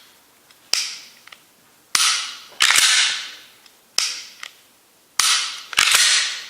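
Six pistol shots from a Glock 19 Gen5 9mm, fired at an uneven pace with two in quick succession near the end, each sharp crack trailing off in a long echo with faint small ticks after it.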